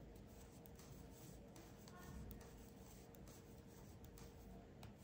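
Faint, scattered clicks and light scraping of metal circular knitting needles and yarn as stitches are knitted, over quiet room tone with a faint steady hum.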